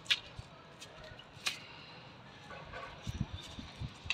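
Faint outdoor background with two short sharp clicks in the first second and a half, then a few low thumps near the end.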